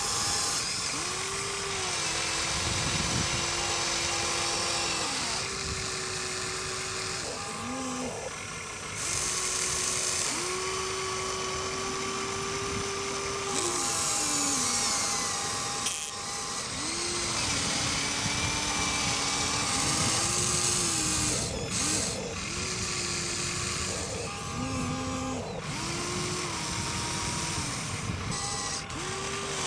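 Small electric motors of radio-controlled toy excavators and a bulldozer whining, starting and stopping every few seconds, the pitch sliding up as each run begins and down as it ends, with patches of hiss.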